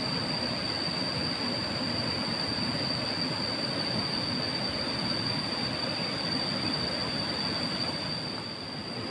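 A steady, high-pitched insect drone over a constant rush of river water.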